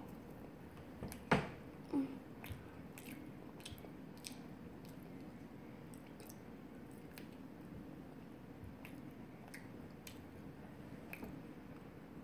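A person chewing and biting into a breaded fish stick, with soft mouth clicks; two louder clicks come about a second and two seconds in.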